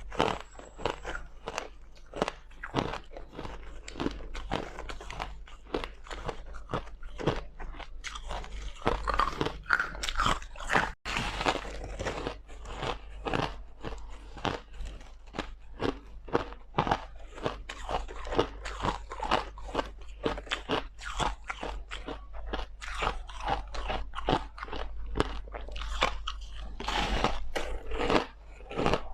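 White crushed ice bitten and chewed close to the microphone: a dense, continuous run of sharp crunches, several a second, with a momentary break about eleven seconds in.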